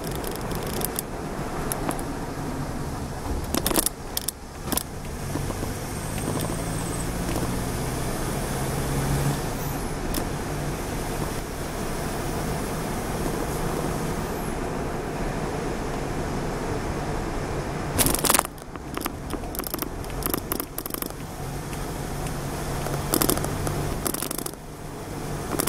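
A car driving along a road, heard from inside the cabin: steady engine and tyre noise, with the engine note climbing briefly about a quarter of the way in. A few sharp rattling knocks break through, the loudest about two-thirds of the way through.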